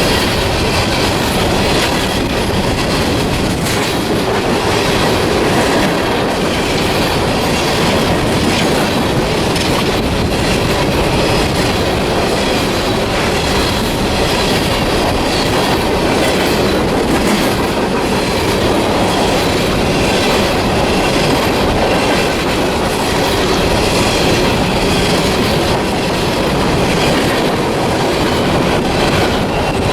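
CSX coal train's cars passing close at speed: a steady rush of wheels on rail with a regular clickety-clack of the wheels over the rail joints.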